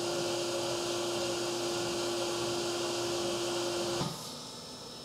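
Haas UMC 750 SS five-axis CNC mill drilling aluminium under flood coolant: a steady hiss of coolant spray with a steady whine from the machine. About four seconds in, the whine cuts off suddenly, leaving a quieter hiss.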